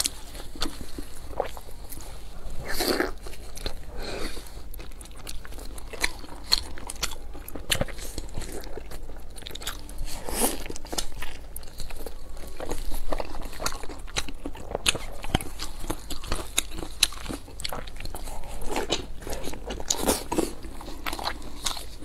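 Close-up eating sounds: biting into and chewing a large pan-fried dumpling, with many sharp wet mouth clicks and crunches.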